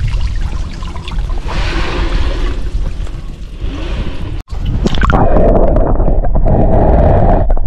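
River water trickling and gurgling through the fine mesh of a whitebait net as the net is lifted and set back in the current. After a brief cutout about halfway, there is a louder, steady, muffled rush of water as the camera dips under the surface.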